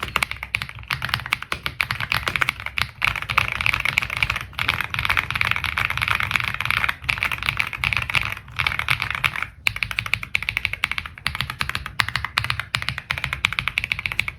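Zifriend RX75 Pro 75% mechanical keyboard being typed on quickly: a dense, continuous run of keystrokes with a few short breaks. Its foam-dampened build gives it a full, muted, thocky typing sound.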